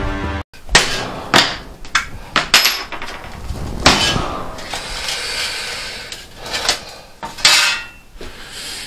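A ball-peen hammer striking a nail set punch into tin plate laid on wood: irregular sharp taps with pauses between them. The thin sheet also rattles and rustles as it is moved and lifted off the bench.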